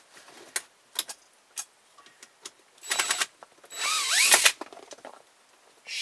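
Cordless drill-driver backing out small Phillips screws from dashboard trim, in two short runs about three and four seconds in, the motor's whine rising and then falling in the second, louder run. A few light clicks of handling come before.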